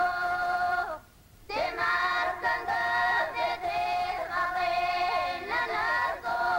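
Music: a song with sung voices holding long notes. It breaks off for about half a second about a second in, then resumes with moving melodic lines.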